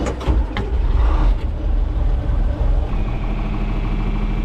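A few sharp clicks, then a tractor engine starts with a heavy low rumble and settles into a steady idle, a steady high tone joining in about three seconds in.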